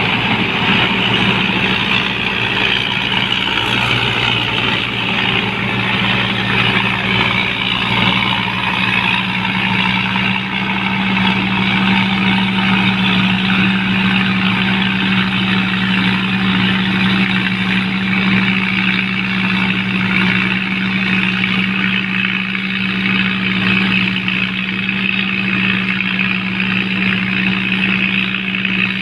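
Combine harvester running steadily: an even engine note under a dense, high mechanical whirr.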